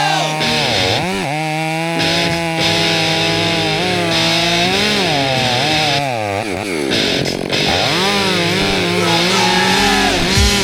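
Two-stroke chainsaw cutting wood. Its engine holds a steady high pitch, then bogs down in the cut and revs back up several times, chugging along.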